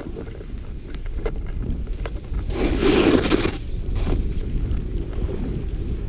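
Snowboard sliding over snow, with wind buffeting the action camera's microphone as a steady low rumble. About two and a half seconds in, the board's edge cuts through the snow in a turn: a louder rushing scrape lasting about a second.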